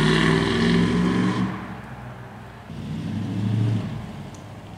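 2004 Toyota 4Runner driving along the street. Its engine is loud under acceleration and drops off about a second and a half in, then a shorter, lower surge of engine sound comes near the middle.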